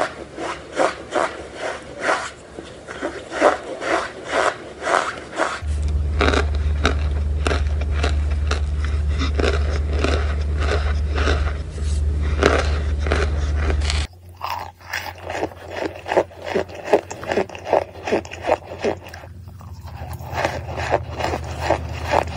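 Packed cornstarch being crunched and scraped by hand in quick repeated strokes, about two to three a second, with a steady low hum underneath through the middle stretch and again near the end.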